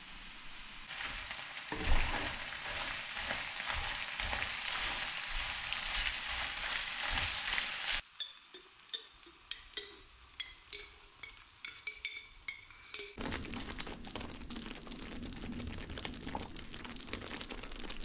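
Food sizzling and frying in a pan as it is stirred, with a loud knock about two seconds in. Around the middle it turns quieter, with a string of short pops and plops, then a steady sizzle returns.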